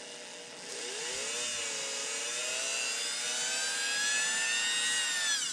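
Dremel rotary tool motor whining as it spins a baitcast reel spool, whose end is being polished against rouge-loaded leather. The whine rises in pitch about a second in and dips briefly. It then climbs slowly and winds down sharply near the end.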